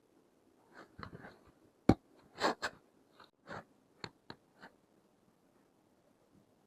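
Plastic toy pieces being handled: a sharp click about two seconds in, then scraping or rustling bursts and a few lighter taps and clicks.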